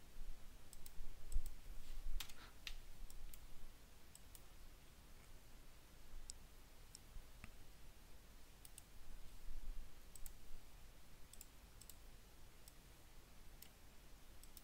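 Computer mouse clicking now and then: a dozen or so single clicks, some in quick pairs, over a faint low hum.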